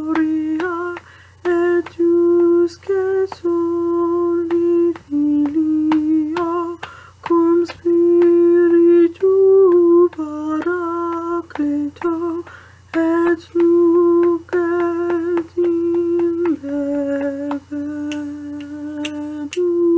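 A woman's unaccompanied voice singing a slow melody, note by note, each note held about a second with a slight waver and short breaks between them.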